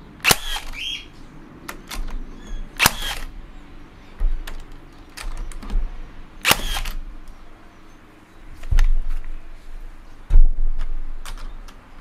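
HiKOKI 36V cordless metal connector nailer firing nails through stacked galvanised steel connector plates into timber: about seven separate shots, the first three sharp with a brief metallic ring, the later ones heavier and duller, the loudest near the end.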